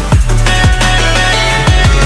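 Background electronic music with a deep bass line and heavy kick drums that drop in pitch, several hits in quick succession.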